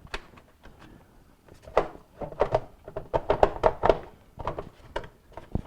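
A series of light knocks and clicks, thickest in the middle, from parts being handled in a microwave's plastic vent-fan housing.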